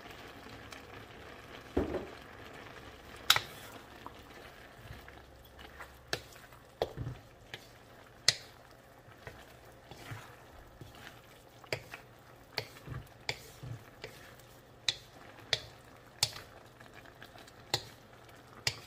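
Wooden spatula knocking and scraping against a metal wok as eggplant and bok choy are stirred in sauce, with irregular sharp taps over a faint steady sizzle of the simmering pan.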